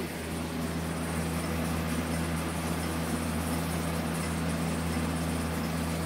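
Steady low mechanical hum with an even hiss over it, like a running household appliance such as an air conditioner or fan.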